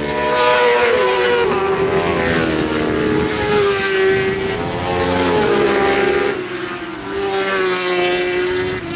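Superbike racing motorcycles at speed, their engine notes rising and falling in pitch several times as the bikes pass through the corners.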